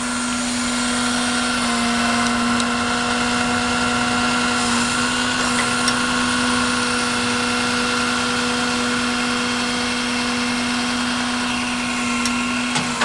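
Service truck running with its PTO engaged, the hydraulic system driving the crane boom up, giving a steady, even machine hum with a few faint clicks.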